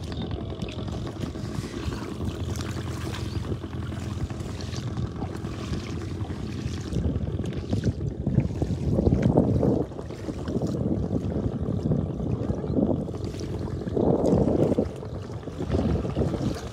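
Wind buffeting the microphone in gusts, strongest about halfway through and again near the end, over a steady low engine hum.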